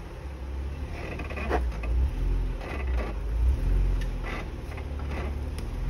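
Jeep Wrangler Rubicon engine working at low speed under throttle, swelling and easing several times as it crawls over a rock ledge, with several short creaks and scrapes from the chassis and tyres on the rock.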